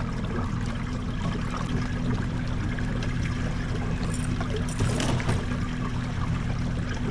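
Water trickling and splashing over a steady low hum, with a few light clicks about four to five seconds in.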